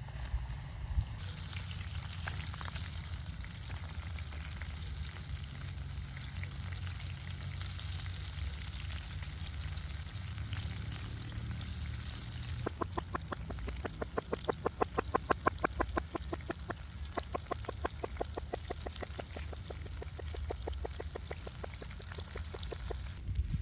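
Hot oil sizzling steadily, starting about a second in, typical of chicken deep-frying. From about halfway through, a rhythmic tapping runs at roughly five taps a second over the sizzle.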